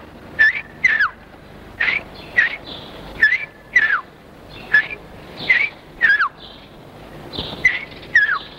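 A person whistling an imitation of a cardinal's song: short clear phrases, each a held note that drops into a downward slur, repeated about once a second. It is heard on an old recording with dull, cut-off treble.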